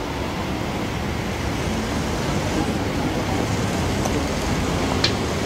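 Steady outdoor background noise, a low rumble like distant road traffic. There is one brief light click near the end.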